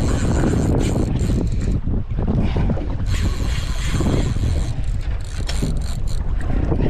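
Steady wind buffeting the microphone on a small open boat on choppy sea, with the water washing around the hull.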